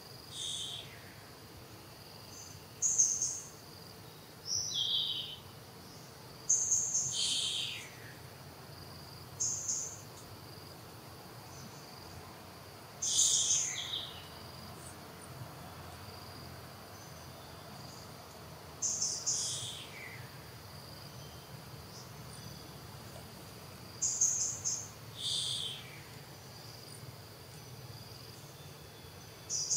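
Steady high-pitched insect chirring, with a bird giving short, high, downward-sliding calls about every two to five seconds; the calls are the loudest sounds.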